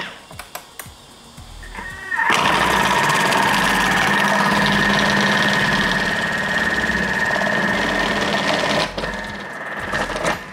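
A Thermomix with its Cutter accessory grating a carrot on the thin grating setting. After a few clicks, the motor spins up about two seconds in and runs steadily with an even whine as the carrot is fed through, then eases off about nine seconds in.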